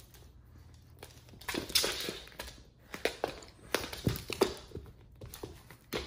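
Irregular rustling with scattered soft knocks and clicks close to the microphone, coming in several short clusters.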